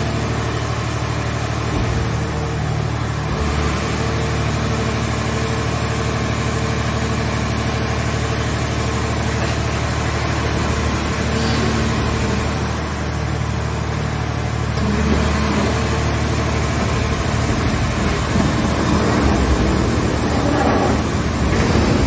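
Hydraulic scrap car baler running under load as its press lids fold shut to compress a scrapped car shell: a steady machine drone from the power unit and pump with a high steady whine, a little louder and rougher over the last several seconds.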